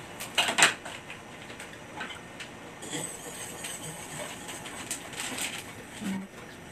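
A stirring utensil ticking and tapping against a cooking pot as gelatin is stirred into boiling water, with a louder cluster of clatter about half a second in.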